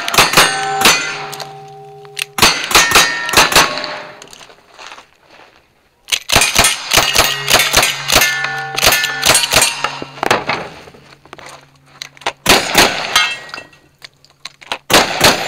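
Strings of rapid gunshots, each hit answered by steel targets clanging and ringing. Revolver shots come first, then a lever-action rifle string in the middle, and shotgun blasts near the end.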